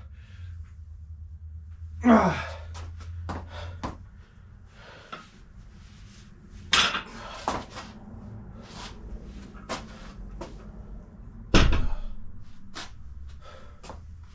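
Scattered metal clanks and knocks from weight-training equipment being handled, with a heavy thud late on. There is also a loud exhale about two seconds in.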